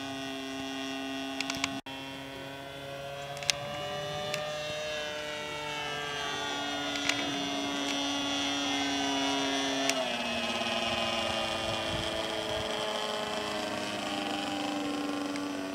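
Engine of a radio-controlled Seagull Extra 300S model aerobatic plane running in flight, a steady buzzing tone whose pitch glides and steps up and down several times as the throttle and the plane's distance change. A few sharp clicks sound over it.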